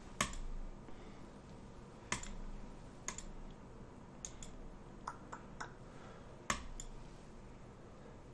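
Computer mouse clicks, about ten sharp, irregular clicks, some in quick pairs, made as chess pieces are moved in a fast online bullet game.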